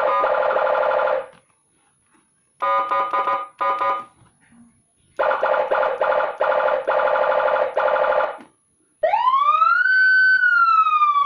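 Senken electronic siren module sounding through its tones: a buzzy, rapidly pulsing horn-like tone in several bursts with short gaps between them. About two seconds from the end it switches to a wail that rises, holds briefly and starts to fall.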